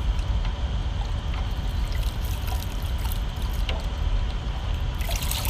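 Water trickling and splashing in a big pot as pani, spiced water for pani puri, is mixed. A louder splashing starts near the end.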